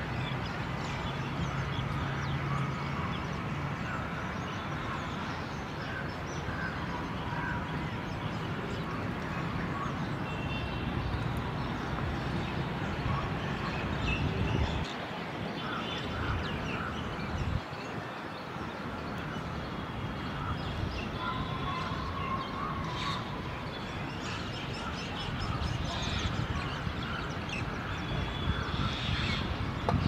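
Steady outdoor background noise with scattered short bird calls and chirps throughout.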